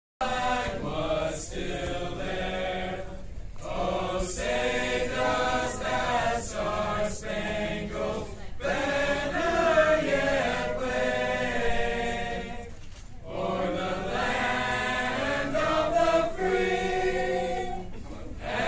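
A small mixed choir of men's and women's voices singing an anthem, in long held phrases with a short breath between each.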